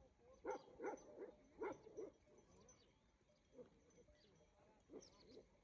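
Faint animal calls: short, quick calls in groups, several close together in the first two seconds, then a few more spaced out near the end.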